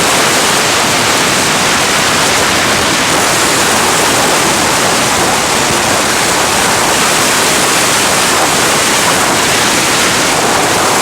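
Hurricane-force wind blowing hard: a loud, steady rushing hiss that does not let up.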